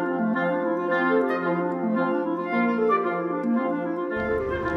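Background music: a melody of held notes moving step by step over sustained chords, played on wind-like instruments. Near the end a low rumble comes in underneath.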